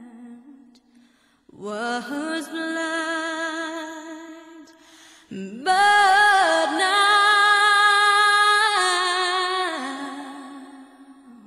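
Slow music: long held notes with vibrato, in two phrases, the second starting about five and a half seconds in, louder and higher, then fading out near the end.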